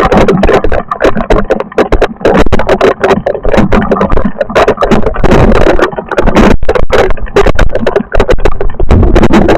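Storm precipitation pounding in a dense, loud clatter of rapid hits, close to overloading the recording.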